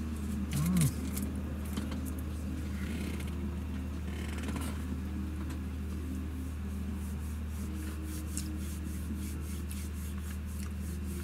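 Steady drone of a GAZelle light truck's diesel engine and road noise, heard inside the cab while driving, with light rustling and small clicks over it.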